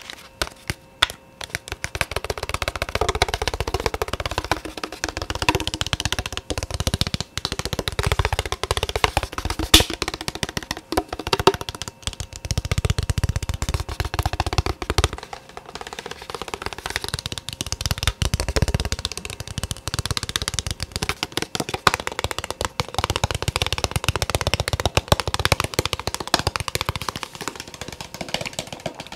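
Fast, continuous tapping, many taps a second, with stretches of deeper thudding every few seconds.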